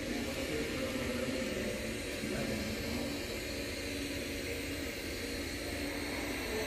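Steady, even background hiss and rumble of a large hangar, with no distinct sound event standing out.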